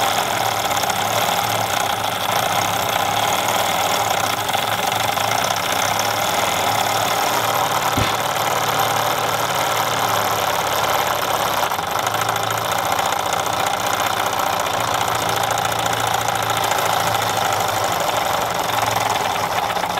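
1930s Bowman Seahawk toy steam boat's twin-cylinder steam engine running steadily and fast out of the water, a rapid, even clatter, with steam hissing from its leaking safety valve.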